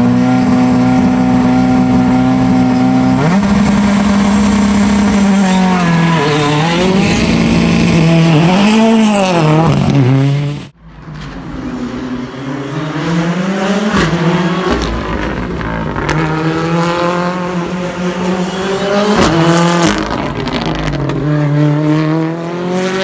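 Ford Fiesta R5 rally car's 1.6-litre turbocharged four-cylinder engine held at steady high revs at the start line for about three seconds, then dropping as the car launches and revving up and down. After an abrupt cut about eleven seconds in, the engine is heard again accelerating hard, its pitch climbing repeatedly through gear after gear.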